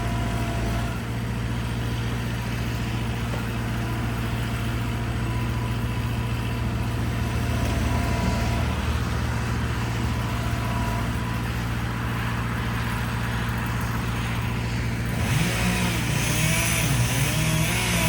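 Skid steer engine running steadily at a constant pitch, with a thin steady whine above it. About fifteen seconds in, a brighter rushing noise joins the engine.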